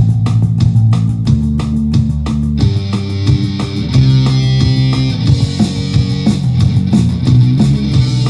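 Guitar-driven punk rock music with bass. It opens with an even, fast run of strums or beats, and about two and a half seconds in it changes to a more sustained passage.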